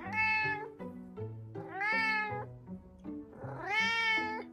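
A house cat meowing three times: long, drawn-out meows about a second and a half apart, each rising and then falling in pitch, over soft background music.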